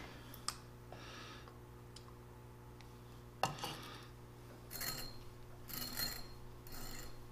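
Short metallic scraping strokes, about a second apart, from a 3/8-16 hand tap being turned by its tap wrench to clean out crusty threads in a steel shaft end. There is a sharp metal click about midway, and a steady low hum runs underneath.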